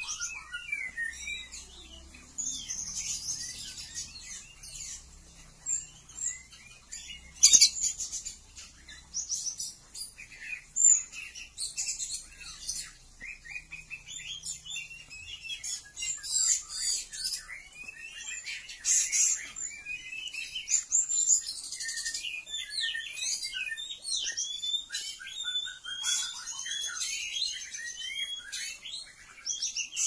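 Oriental magpie-robin song: a busy, varied run of short whistled and chirping notes sliding up and down, the male courting the female. A sharp click comes about seven and a half seconds in.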